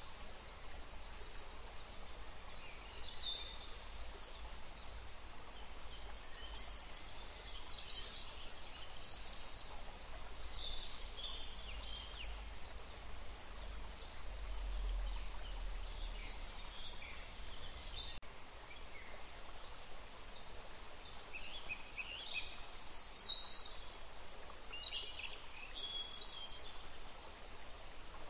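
Birds chirping in short, high, falling notes over a steady hiss, with the chirps sparser in the middle stretch.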